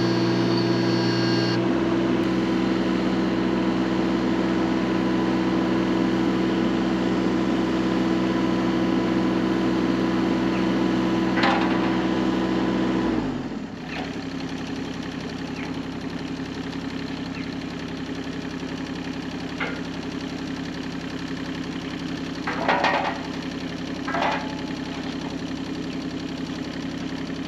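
Engine of a heavy machine running steadily, then throttling down to a lower idle about halfway through, while the sawmill is being lifted and set in place. A few short knocks sound in the second half.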